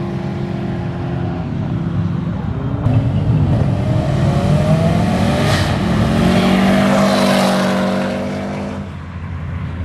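Car engine running, then accelerating hard from about three seconds in with a rising engine note, easing off near the end.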